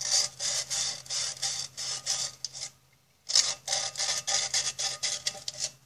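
150-grit sandpaper rubbed in quick back-and-forth strokes inside a steel tin can, scratching off the burrs left by the can opener. A pause of about half a second near the middle, then the sanding resumes.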